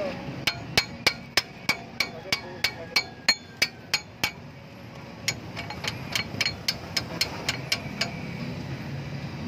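Hammer tapping metal on a brake caliper assembly: a run of about a dozen sharp, ringing taps at about three a second, then after a short pause a quicker, lighter run of taps.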